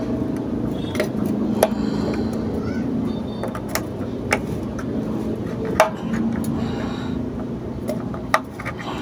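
A handful of sharp plastic clicks and knocks, about five spread through, as a MIG welder's wire spool is handled and seated on its spindle hub, over a steady low hum.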